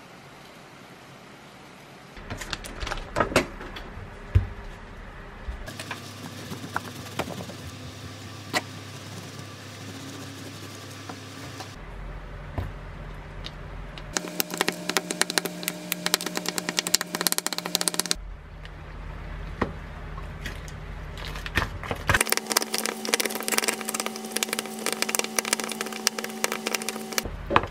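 Food-prep handling sounds over several cuts: many light clicks and knocks of utensils against a ceramic bowl, ending with a wooden spatula mixing thick Greek yogurt with blueberries in the bowl. A steady low hum runs under two of the stretches.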